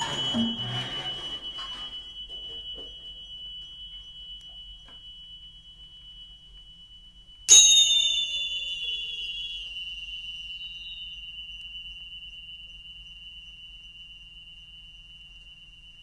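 Struck metal percussion in free improvisation: a high, pure ringing tone fading slowly from a strike just before. About seven and a half seconds in, a second, louder strike sets off a bright clang of several high tones that die away within a few seconds, leaving one high tone ringing on and fading.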